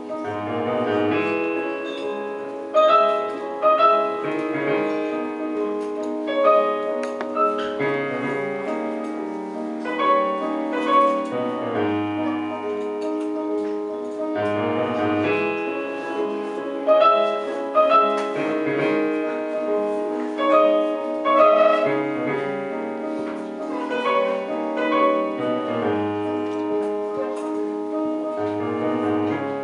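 Korg Triton keyboard played solo through a stage speaker: a melody over held chords, with low bass notes coming back every couple of seconds.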